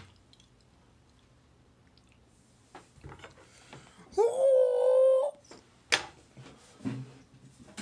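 Mostly quiet room tone, broken about four seconds in by a man's drawn-out wail held on one pitch for about a second, followed shortly by a single sharp knock.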